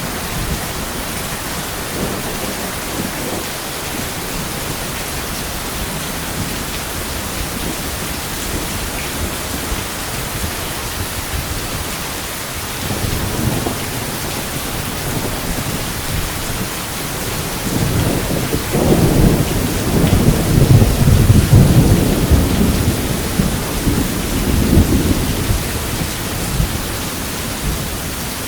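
Steady heavy rain, with a short low rumble of thunder about halfway through and then a longer, louder roll of thunder that builds and fades over about eight seconds near the end.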